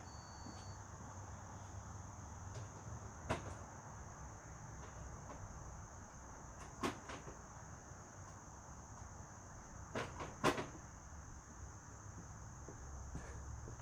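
A few faint scattered clicks and knocks from a socket wrench and lug nuts being handled while an ATV's rear wheel is unbolted, over a steady high-pitched insect buzz.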